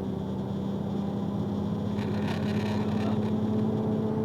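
Box truck engine droning steadily, heard from inside the cab, its pitch creeping slowly upward. A brief hiss comes in about two seconds in and fades after about a second.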